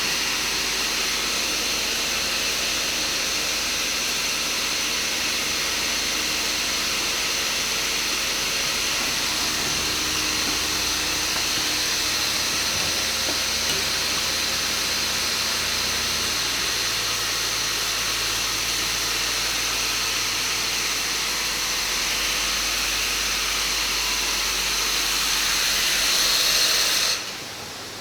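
DW 25 nail-collating machine running with a loud, steady hiss and a faint hum; the low hum changes about two-thirds of the way through, and the noise drops off sharply near the end.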